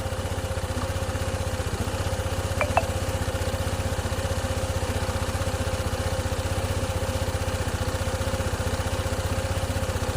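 Honda ADV 160 scooter's single-cylinder four-stroke engine idling steadily. The idle is still high, around 1850 rpm, and is not yet settled: the ECU has not been re-programmed after the repair.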